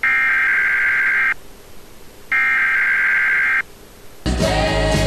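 An electronic telephone ringer trilling twice, each ring a little over a second long with about a second between them. Music starts near the end.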